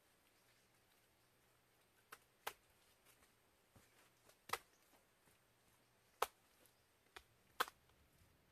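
Wet mud slapped and pressed by hand onto a hut's log wall: about six short, sharp slaps at irregular intervals over a faint, quiet background.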